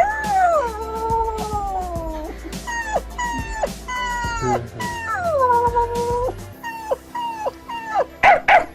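A man's voice imitating a dog crying: two long falling howling whines with short yelps between them, then a few sharp barks near the end.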